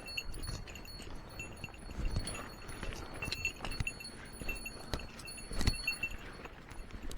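Short, high chirping calls repeating irregularly, over scattered sharp clicks and a low rumble. The loudest thing is a single sharp click a little before the end.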